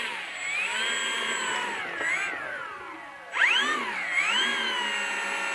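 RC model airplane's motor whining as the plane taxis out, its pitch rising and falling with the throttle. It dips twice, revs up sharply about three and a half seconds in, and holds high near the end.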